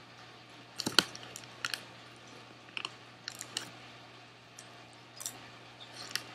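Scattered short, sharp crackles from eating popcorn out of a foil snack bag: the bag crinkling as it is handled and popcorn crunching, the loudest about a second in.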